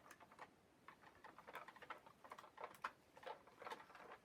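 Faint, irregular small clicks and taps of a plastic toy truck being handled.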